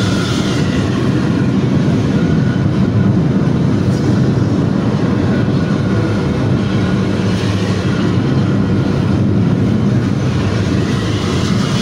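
Intercity bus's diesel engine and exhaust droning steadily, mixed with road noise, heard from inside a car following close behind.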